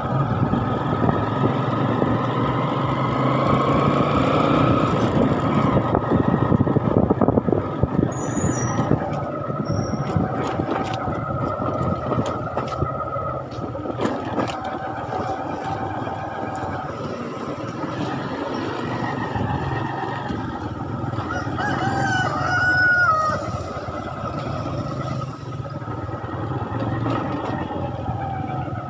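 Vehicle engine running and road noise while driving slowly over a rough, potholed dirt road, with scattered knocks and rattles from the bumps. A short pitched call rises and falls about three quarters of the way through.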